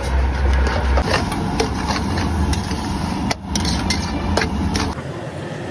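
Steel spatula scraping and clanking against a large steel pan as egg bhurji is stirred and chopped, with quick repeated knocks, over a steady low rumble. The rumble drops away about five seconds in.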